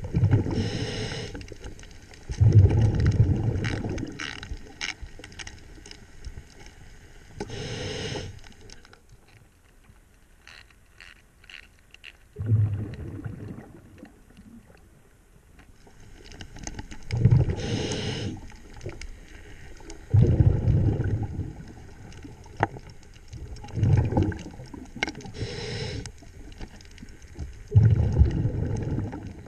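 Diver's breathing regulator underwater: a hiss of each inhale through the regulator followed by a low rumble of exhaled bubbles, four breaths in all. A few faint clicks near the middle.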